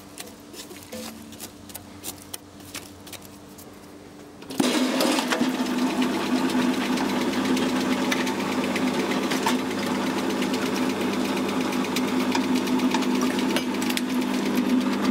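A home-built electric shredder is quiet at first with a faint hum and a few small clicks. About four and a half seconds in, its electric motor starts, and it then runs steadily with a loud hum and a busy rattle.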